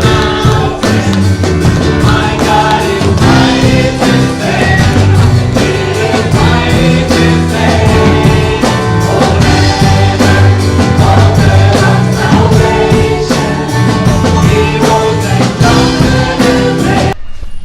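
A song with singing over a band with guitar and a steady beat, cutting off suddenly near the end.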